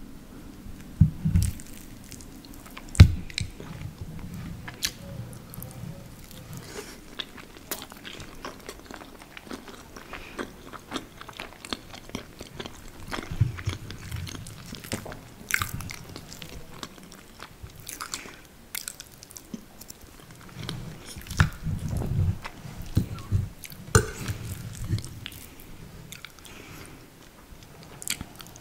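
Chewing and mouth sounds of someone eating lasagna, mixed with many short sharp clicks of a metal fork scraping and tapping on the plate as pieces are cut.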